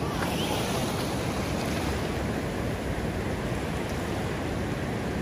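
Ocean surf: a steady rush of waves breaking on the reef offshore and washing through the shallows, with low wind rumble on the microphone.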